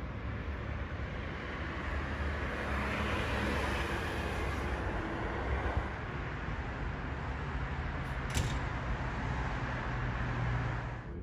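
Ferrari Roma's twin-turbo V8 idling steadily, with a low even hum. A single sharp click comes about eight seconds in.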